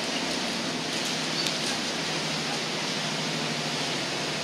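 Steady rushing of wind and water on the open deck of a moving cruise boat, with a low, even engine hum underneath.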